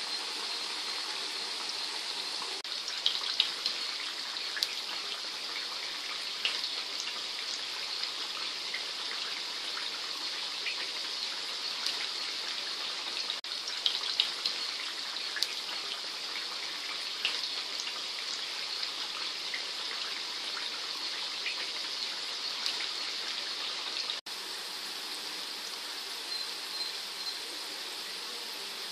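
Potato strips deep-frying in hot oil: a steady sizzling hiss with scattered sharp crackles and pops. The sizzle drops slightly in level about 24 seconds in.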